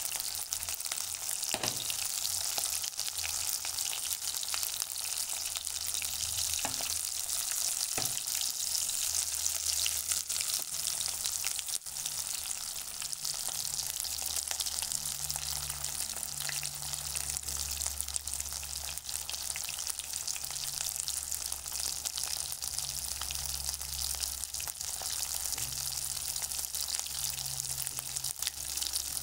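Steady high hiss, with a low hum coming and going in the second half and a few faint knocks.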